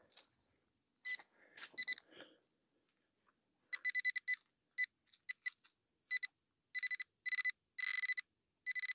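Quest Xpointer Max pinpointer beeping in short irregular pulses that come faster and closer together until they nearly join into one continuous tone, as its probe closes in on buried metal in the dug soil. A few faint knocks come in the first two seconds.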